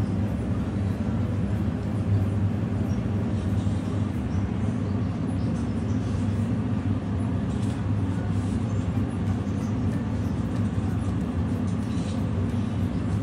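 A steady low hum and rumble, unchanging throughout, with faint small clicks above it.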